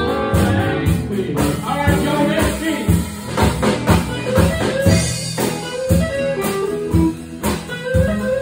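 Live blues band playing, with guitars over a steady drum beat.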